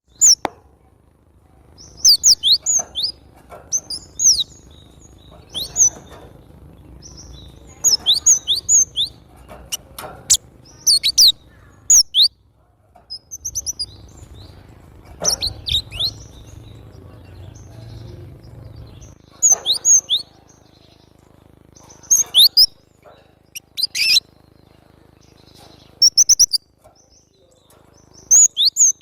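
Cinereous tit (glatik batu) singing actively: short clusters of sharp, high chirps that slide quickly in pitch, repeated every second or two with brief pauses.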